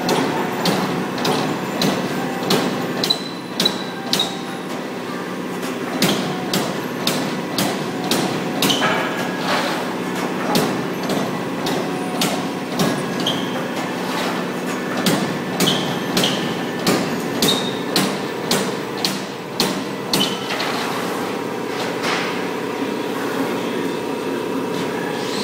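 Wiedemann Motorum 2044 CNC turret punch press punching holes in sheet metal: a train of sharp punch strokes, about one to two a second with short pauses, over the steady hum of the running machine. Near the end the strokes stop and only the hum continues.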